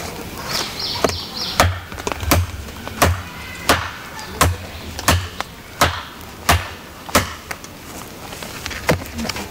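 ESEE-5 fixed-blade knife chopping into a half-rotten oak branch: a steady run of sharp strikes, roughly one every two-thirds of a second. A bird chirps briefly near the start.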